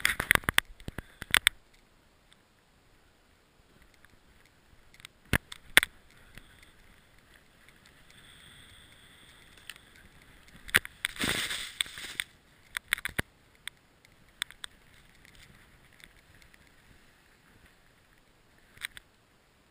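A snowboard sliding through snow in the trees: mostly quiet gliding broken by scattered sharp knocks, and a longer rushing scrape of snow about eleven seconds in.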